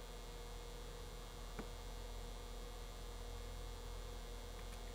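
Steady low electrical hum with a faint high tone running under it, and one faint tick about one and a half seconds in.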